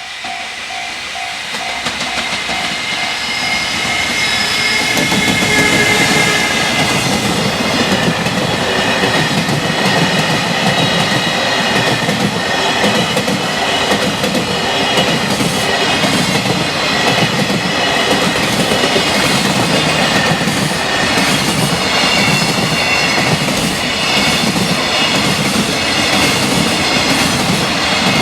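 Electric-hauled freight train passing at high speed, its wheels clattering over the rail joints in a steady repeating rhythm wagon after wagon. A level crossing warning bell is ringing at the start, drowned out as the train comes in, and a high whine rises with it over the first few seconds.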